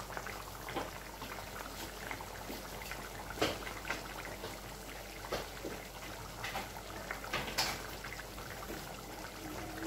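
Soft liquid sounds from a pot of soup, with a few short clicks, the sharpest about three and a half seconds in and again near eight seconds.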